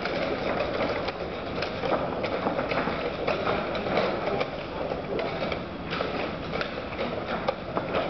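Many blitz chess games played at once: a fast, irregular clatter of chess pieces set down on boards and chess clock buttons pressed, over a steady background noise of the hall.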